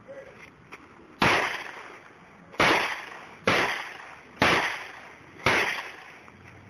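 Five handgun shots fired one at a time, roughly a second apart, each trailing off in echo.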